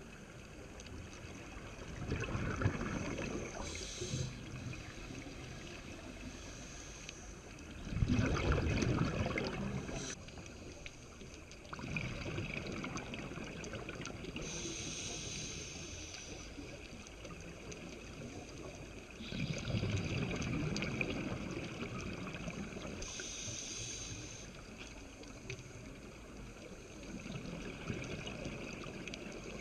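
Scuba breathing through a regulator, heard from the camera underwater: exhaled bubbles gurgle in bursts of a few seconds, with a short hiss of inhaled air between them, about four breaths.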